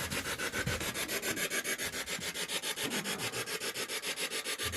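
Ghost-hunting spirit box sweeping through radio stations: a fast, even chatter of static bursts, about seven a second.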